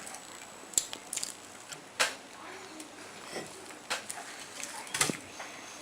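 A person eating chicken nuggets: soft chewing with a few short mouth clicks and smacks spaced about a second apart.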